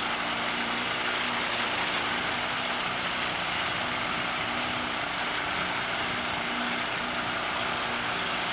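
Tiller-steered outboard motor running steadily while trolling: a constant low engine drone under an even hiss.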